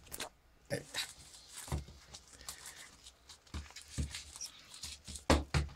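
A CD case and its packaging being handled and opened on a desk: scattered clicks, taps and rustles, with a couple of louder knocks near the end.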